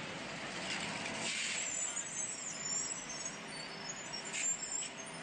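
Steady background hiss with faint street-traffic noise, no distinct events.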